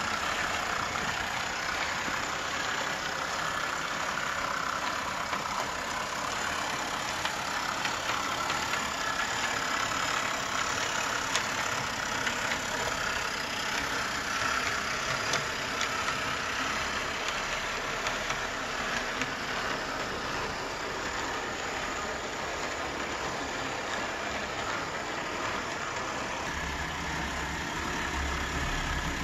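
O scale model steam locomotive, a scratch-built Burlington T2 Mallet, running along the track under power: a steady whirring of its motor and gearing with the wheels rolling on the rails and a few faint clicks. A deeper rumble joins near the end.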